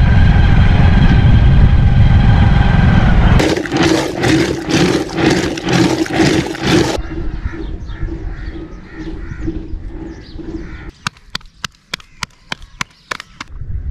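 A motorcycle engine running steadily. About three and a half seconds in, it cuts to the rhythmic splashing of a wooden churn stick working milk in a clay pot. Near the end comes a quick run of about a dozen sharp slaps as flatbread dough is patted between the palms.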